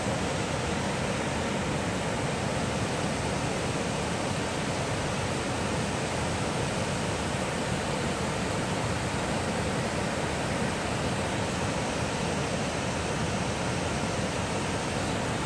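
Manido Falls, a broad cascade pouring over stepped rock ledges: the steady rush of falling water, unchanging throughout.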